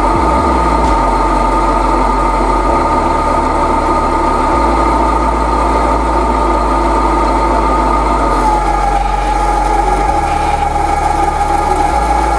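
Metal lathe running steadily with a whine as its spindle turns a rod and a die held in the tailstock cuts a thread on the end. The whine drops slightly in pitch about eight seconds in.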